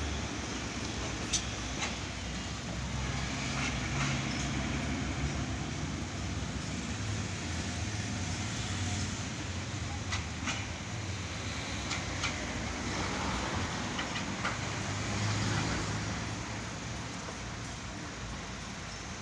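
Steady street and vehicle noise with a wavering low hum and occasional sharp clicks.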